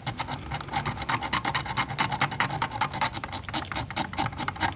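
Razor blade scraping worn paint off the plastic buttons of a GM climate control panel in quick, repeated short strokes, several a second, clearing the button faces down to white plastic.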